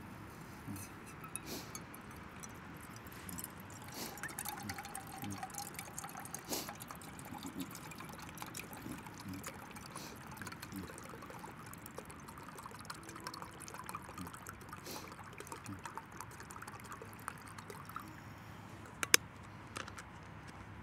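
Water being poured and trickling into a metal camping pot, with light clinks and handling knocks of the cookware and one sharp click about a second before the end.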